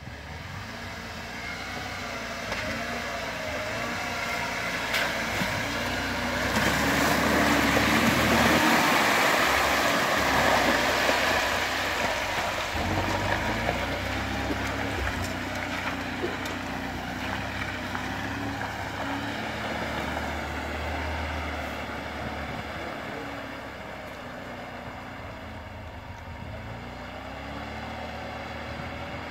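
UAZ Patriot's engine running under load as the SUV drives through mud and a water-filled rut, tyres churning and splashing. The engine and splashing are loudest from about seven to twelve seconds in.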